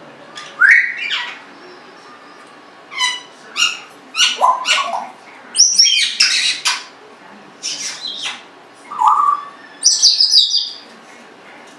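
Congo African grey parrot making a string of short whistles, squeaks and chirps in about eight separate bursts, some sliding up in pitch and some sliding down, with a few sharp clicks among them.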